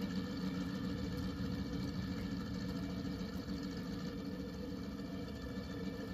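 Electronic sound unit built into a scale model aircraft, playing a recorded piston aero engine idling steadily.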